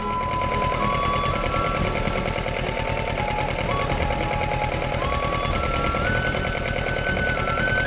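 Kawasaki Ninja 650 parallel-twin engine running under way, a rapid, steady exhaust pulsing, with a simple background-music melody playing over it.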